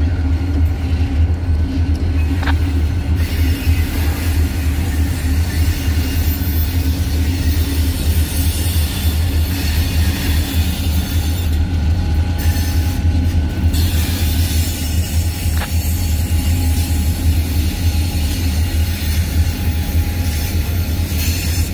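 Pair of six-axle diesel-electric locomotives rolling past: a steady low engine rumble with wheel-on-rail noise and a faint wheel squeal.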